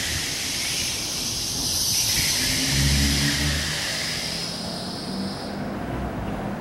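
Traffic passing on the street: a car drives by, with engine rumble and tyre hiss that swell about halfway through and fade away.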